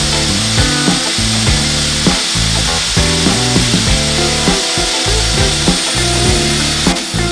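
Concrete core cutting machine drilling, a steady gritty hiss of the bit cutting through concrete, under background music with a moving bass line.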